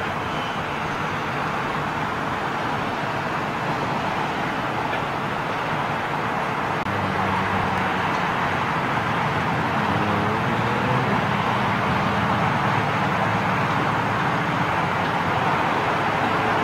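Airport ground noise: a steady rush of jet engine noise that grows a little louder about seven seconds in, when a low engine hum joins it. A faint rising whine comes in about ten seconds in and again near the end.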